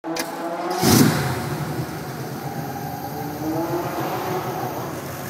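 1973 Chevrolet Camaro SS V8 engine idling, with a short rev about a second in.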